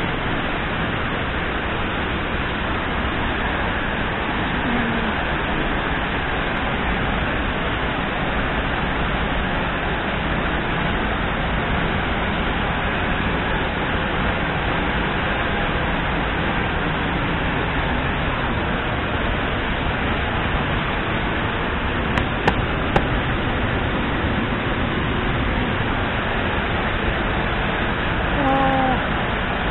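Steady rush of a tall, fast-flowing waterfall pouring into its pool, mixed with falling rain and spray.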